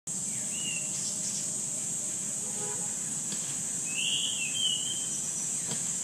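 Ashy thrush singing: a short whistled note about half a second in, then a louder two-part whistle around four seconds in, over a steady high-pitched insect drone.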